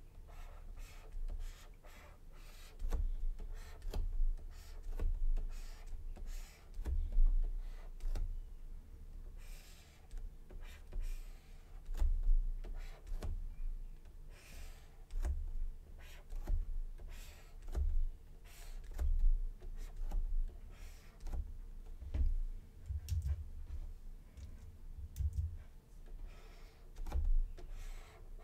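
Pen stylus working on a Huion pen tablet: irregular taps and short scratchy strokes, mixed with dull low thumps.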